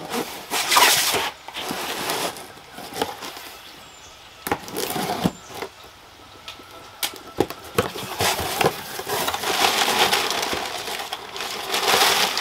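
A cardboard box being torn open by hand: scratchy tearing and rustling in irregular bursts with short pauses and sharp crackles.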